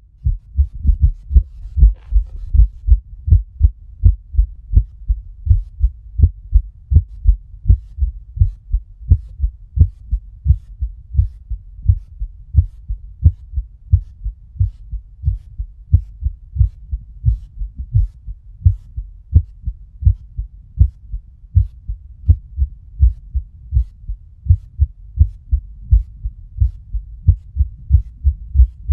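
A woman's heartbeat heard through a stethoscope: low lub-dub beats repeating steadily, several thumps a second.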